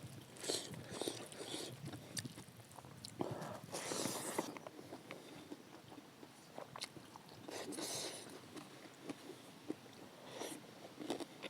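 A person eating close to the microphone: chewing and biting with many small mouth clicks and several louder bursts of a second or less.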